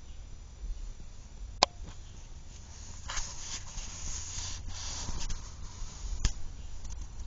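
A three-week-old kitten grooming itself: soft scratchy licking and rustling, heaviest about three to five seconds in. Two sharp clicks stand out, one about a second and a half in and one near the end.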